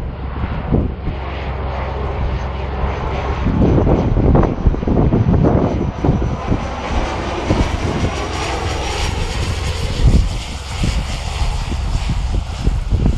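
Single-engine light aircraft's propeller engine on a short final approach to landing, its sound getting fuller and nearer from about halfway through. Gusts of wind buffet the microphone, strongest in the first few seconds.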